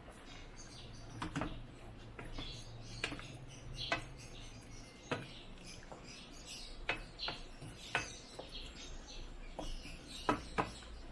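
Wooden spatula stirring chicken pieces in a metal wok, knocking and scraping against the pan in irregular clacks about once or twice a second.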